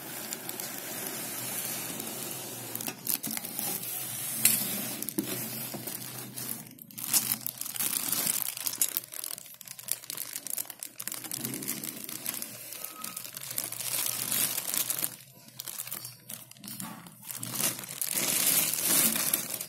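Packaging being handled and unwrapped: irregular crinkling and rustling with scattered sharp clicks and knocks.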